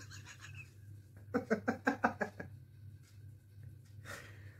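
A man laughing: a quick run of short 'ha' pulses about a second and a half in, then a short breathy exhale near the end.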